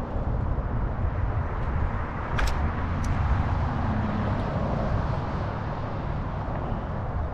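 Steady wind and road noise from riding a bicycle beside a busy street, with car traffic passing. Two sharp clicks come about two and a half and three seconds in.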